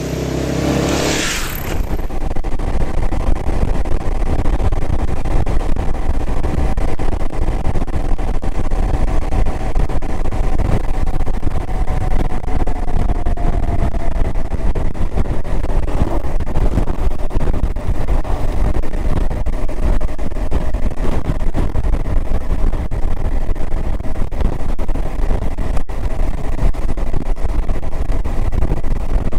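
Kawasaki KLR 650 single-cylinder dual-sport motorcycle cruising on a paved highway: steady wind rush over the microphone with the engine running underneath. A short burst of brighter rushing noise in the first second or two.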